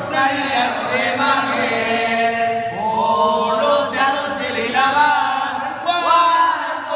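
A group of men's voices singing together without instruments, with long held notes.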